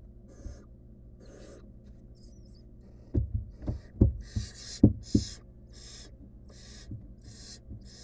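Barn owl nestlings giving their rasping, hissing begging calls, short bursts about two a second, louder from about halfway through. Around the middle comes a run of loud thumps and knocks from the owls shifting against the wooden nest box.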